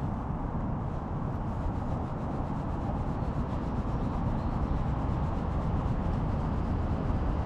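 A hand scratching and rubbing a cat's fur close to the microphone: a steady, low rustling rub.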